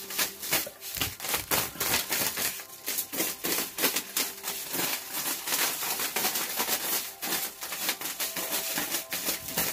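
Close-up rustling and crackling: many quick, irregular crinkling clicks from something being handled right at the microphone.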